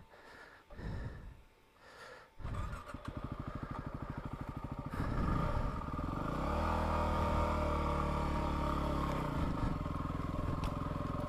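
Yamaha WR250R's 250 cc single-cylinder four-stroke engine starts up suddenly about two seconds in and idles with a quick, even pulse. Near the halfway point it is revved up and then pulls steadily under load as the bike moves off.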